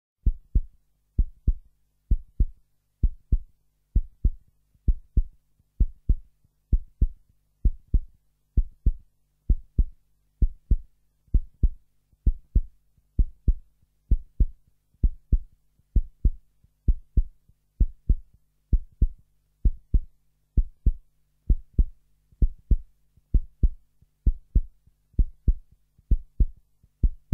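Slow heartbeat: a steady lub-dub of paired low thumps about once a second, over a faint low hum.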